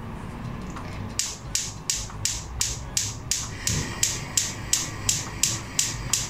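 Gas stove's spark igniter clicking about three times a second as the burner knob is held turned, starting about a second in, with a short pause past the halfway point before it resumes; the burner has not yet caught.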